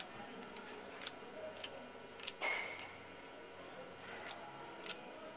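Baseball cards being handled and sorted on a counter: scattered soft clicks and ticks of cards being flicked and set down, with a brief rustle about two and a half seconds in.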